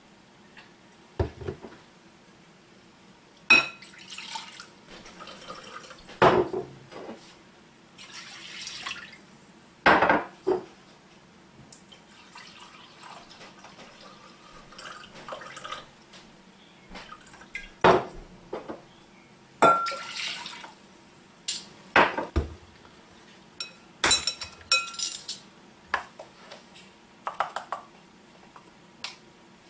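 Jerky brine being made: a dark liquid glugs from a bottle into glass and plastic mixing bowls, with clinks and knocks as bottles, bowls and a spoon are handled and set down on the counter.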